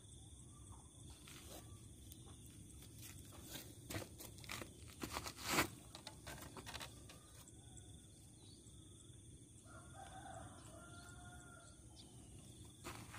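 Faint rooster crowing, one call of about a second and a half, about ten seconds in. Scattered clicks and knocks, the loudest around the middle.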